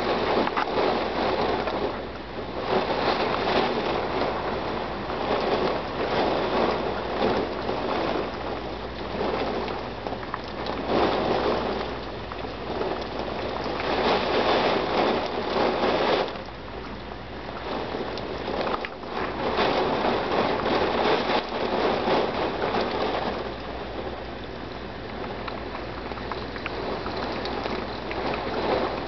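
Heavy rain and wind of a storm, the downpour swelling and easing in gusts every few seconds.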